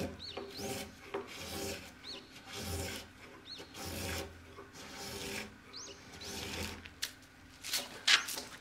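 Chisel paring Japanese pine (matsu) by hand: a series of short scraping strokes as shavings are sliced off, roughly one a second. Near the end, shavings are swept off the beam with a brushing clatter. Faint bird chirps come through now and then.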